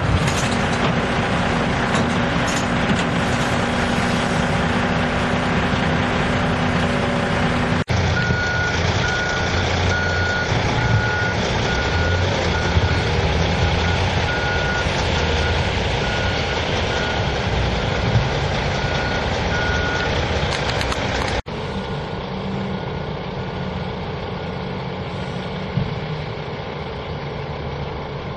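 Diesel heavy equipment (excavator and dump truck) running steadily, with a backup alarm beeping about once a second through the middle section.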